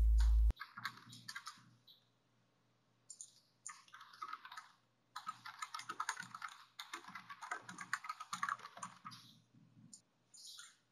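Typing on a computer keyboard: bursts of rapid keystroke clicks with short pauses between them. A steady louder background sound cuts off abruptly about half a second in.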